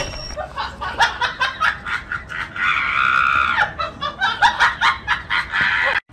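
People laughing, with a high-pitched shriek lasting about a second, about three seconds in, over scattered light knocks and clicks.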